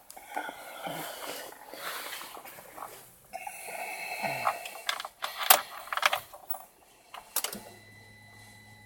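Rustling handling noise with several sharp clicks, the loudest about halfway through; near the end a steady low hum with a faint high whine sets in.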